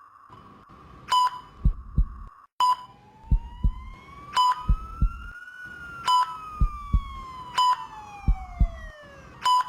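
ICU patient-monitor sound effect: a short high beep about every one and a half seconds, each followed by a low double heartbeat thump. From about three seconds in, a long siren-like tone rises slowly and then falls away.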